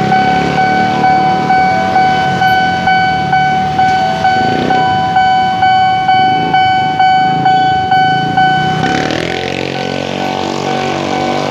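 Railway level-crossing warning bell ringing over and over, struck a little under twice a second, each stroke dying away, with road traffic under it. Near the end the strokes fade and a sustained pitched sound rises in.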